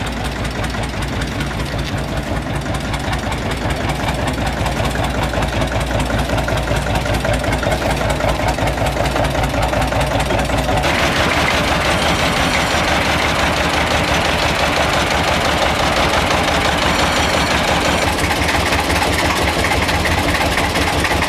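Vintage tractor engines idling, one machine after another: a steady, evenly spaced low knocking in the first half, then a different, brighter-sounding engine from about halfway.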